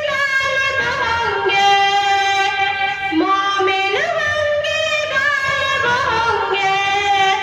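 Schoolchildren singing their school tarana into microphones: long held notes with slides between them.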